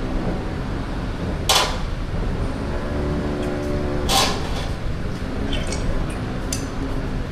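Two sharp knocks, about two and a half seconds apart, over a steady background of workshop noise.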